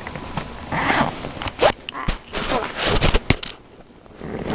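Fabric rustling and a few sharp knocks as a zebra-print backpack is handled.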